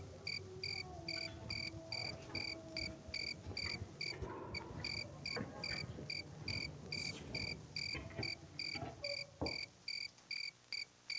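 A cricket chirping faintly in a steady rhythm, about three short high chirps a second.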